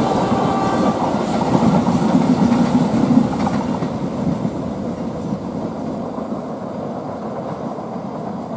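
Passenger train's coaches rolling past, their wheels rumbling on the rails. From about three seconds in, the sound fades steadily as the last coach draws away around the curve.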